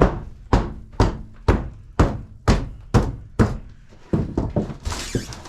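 Heavy blows struck into wooden flooring during floor tear-out, eight in a steady rhythm about two a second, followed by a few lighter, quicker knocks near the end.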